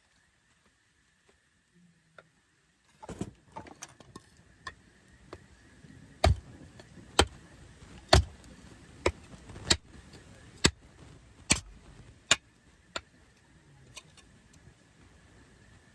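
Wood campfire crackling, with irregular sharp pops and snaps every half second to a second, starting after about three seconds of near silence.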